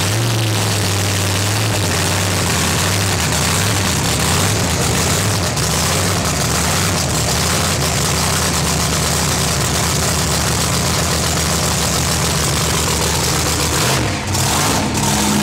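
Pro Mod drag car's Hemi V8 running steady and nice and loud through open headers just after start-up.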